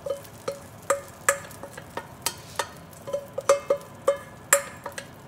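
A spatula knocking and scraping against a stainless steel mixing bowl to get the last of the pancake batter out, a quick irregular series of knocks, each leaving the bowl ringing briefly.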